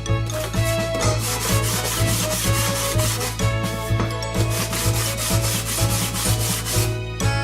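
Abrasive rubbing as the crosscut sled's twisted support base is sanded flat, in quick repeated strokes that stop about 7 seconds in, over background music with a steady bass beat.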